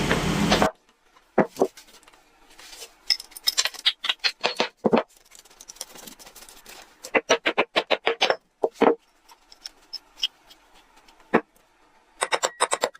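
Metal parts and hand tools clinking and knocking in separate sharp strikes, with a quick run of clicks near the end, as an old rusty drill machine is worked on. A short burst of outdoor noise cuts off under a second in.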